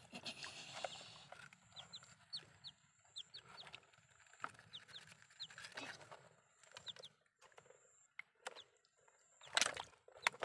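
Chickens clucking, with repeated short high peeps, behind faint knocks and scraping from a toy excavator working in wet mud. A louder burst of noise comes near the end.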